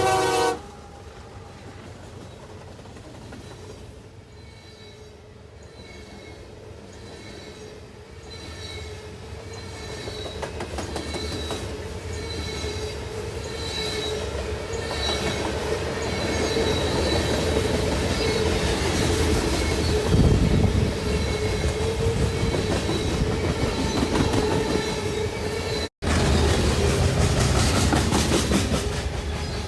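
A train horn cuts off within the first second, then a train rolls by, growing steadily louder, wheels clicking over the rail joints with a steady squeal from the wheels. The sound drops out for an instant near the end.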